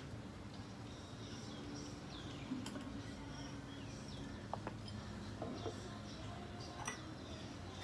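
Small birds chirping faintly in the background, short high calls repeating over a low steady hum, with a couple of sharp clicks about two and a half seconds in and again near the end.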